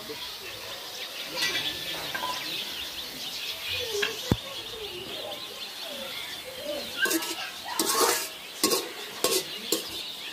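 Metal spoon scraping and knocking against a metal karai as water spinach is stirred and gathered, the greens sizzling faintly; the scrapes and knocks come in a quick run from about seven seconds in.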